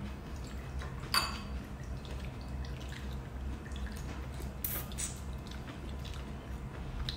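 Metal spoons clinking against ceramic soup bowls, with one sharper clink about a second in, and soup being sipped and slurped from a spoon, over a steady low hum.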